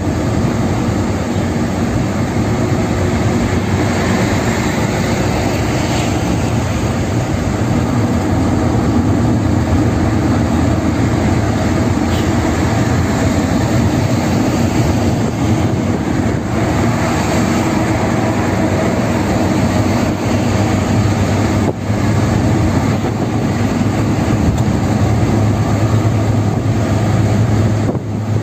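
Steady road noise inside a car cruising at highway speed: a continuous low drone from tyres and engine with a hiss over it.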